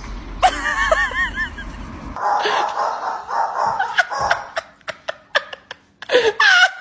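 A person laughing in a quick run of short bursts, followed by a stretch of noise with scattered clicks.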